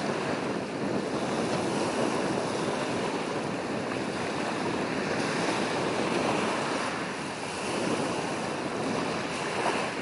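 Steady rushing of wind and small waves along the shore.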